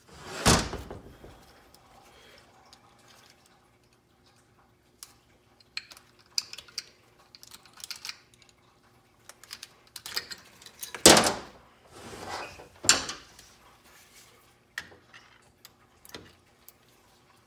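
Scattered clicks, clinks and a few sharp knocks from hands working on a 4L60E transmission's valve body: the wiring harness connectors being unplugged and the harness lifted out and set down on the metal bench. The loudest knocks come just after the start and twice more near the middle.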